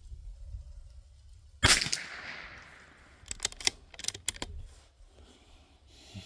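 A single shot from a Bergara B14R bolt-action .22 LR rifle less than two seconds in, with a short ringing tail, followed about a second and a half later by a quick run of sharp metallic clicks as the bolt is worked to eject the case and chamber the next round.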